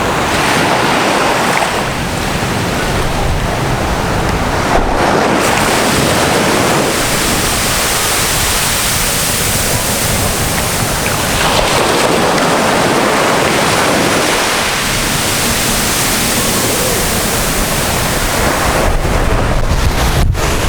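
Surf washing onto a sandy beach in swells every few seconds, with wind buffeting the microphone.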